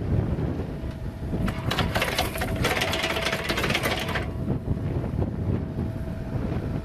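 Mini excavator running with a Ghedini TK-series hydraulic auger drive unit, with wind on the microphone. From about a second and a half in, for about three seconds, there is a dense crackling rattle as the spinning auger flings soil off its flights. A faint steady whine runs under it.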